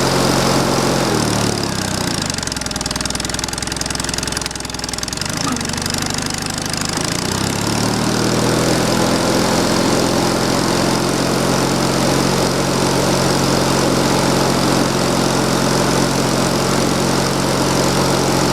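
An engine running steadily. It drops in pitch about a second in, runs lower for several seconds, then climbs back around seven seconds in and holds steady to the end.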